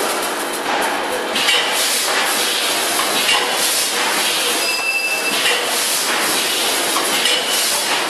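Vertical form-fill-seal granule packing machine running: a steady mechanical clatter with repeated knocks. A short high tone sounds for about half a second near the middle.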